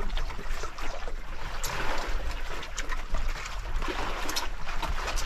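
Sea water sloshing and trickling against a boat's hull, with short sharp clicks of metal spoons scraping plastic plates scattered throughout.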